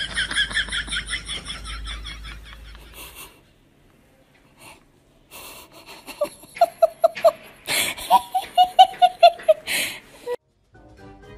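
Laughter: a high, rapid, wheezy giggle for about three seconds, then after a short pause two runs of lower 'ha-ha-ha' laughing.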